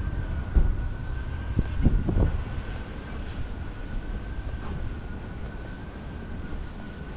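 City street ambience: a low traffic rumble with a steady high whine over it, and a few knocks between about half a second and two seconds in.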